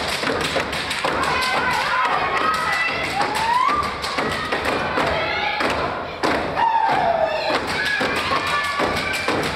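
Step team stepping in unison on a wooden stage: a fast run of foot stomps and hand claps.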